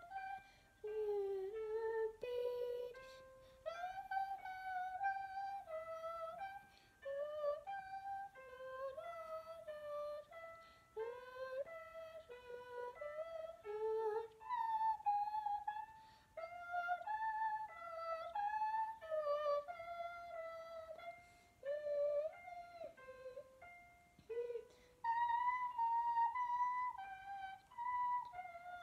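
A girl singing a melody without words, stepping from note to note in a clear high voice in phrases with short breaks for breath: a singing warm-up of the piece she is learning to play.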